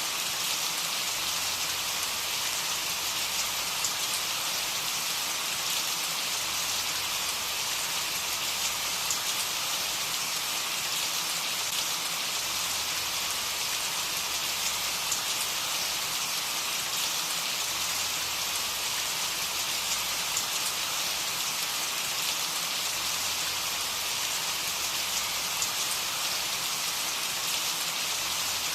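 Steady rain falling: an even hiss of countless drops that holds the same level throughout, with no let-up and no thunder.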